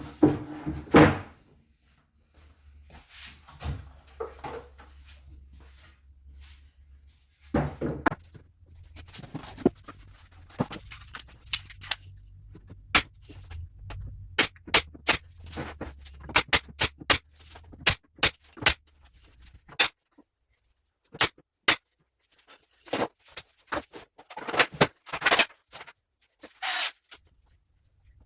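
Irregular sharp knocks and clicks of work on a plywood workbench top. A low steady hum underneath stops about twenty seconds in.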